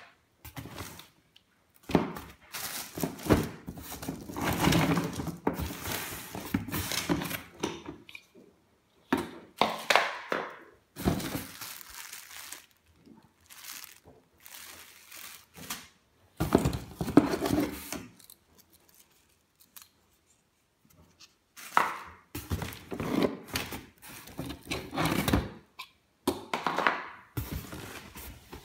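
Plastic packaging bags crinkling and rustling, with thunks and scraping of items against a cardboard box, in irregular bursts with short quiet gaps.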